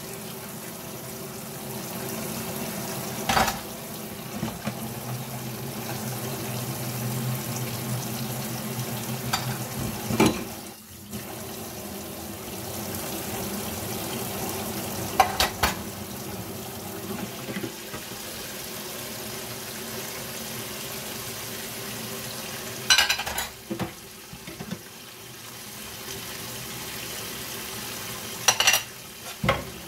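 Kitchen tap running steadily into a sink, broken by five short knocks and clatters.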